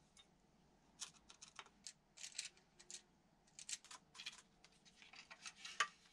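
Faint, scattered scratches and light taps of a marker pen and a plastic spirit level being handled and pressed against a rough rendered wall while hole centres are marked out.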